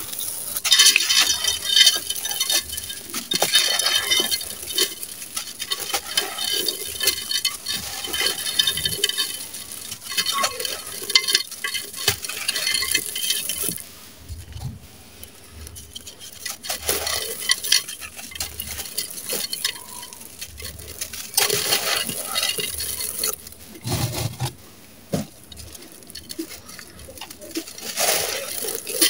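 Dry, gritty sand-cement crushed and crumbled by hand over a pot: dense crunching and crackling of breaking grains and chunks. It comes in loud spells with a couple of quieter gaps.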